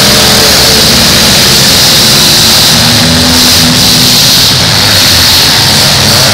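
Several demolition derby cars' engines running and revving together, loud and continuous.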